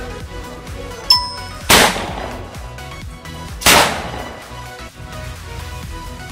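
Paper-wrapped sound cracker (4-inch Gold Deluxe) going off with a loud bang, heard twice about two seconds apart, over background music. A short ding sounds just before the first bang.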